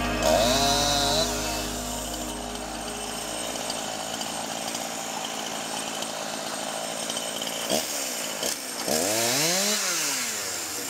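Gas chainsaw running, its engine revving up and dropping back down near the end.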